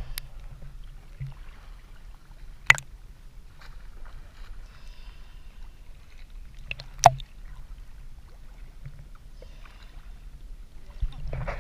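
Small waves lapping at the sea surface against a camera at the water line, with a steady low rumble and two sharp knocks, about three and seven seconds in.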